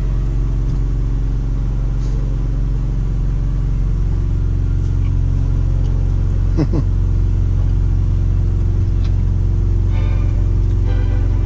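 Semi truck's diesel engine idling steadily, heard from inside the cab. The low hum shifts and deepens about four seconds in, and a brief wavering squeak sounds a little past halfway.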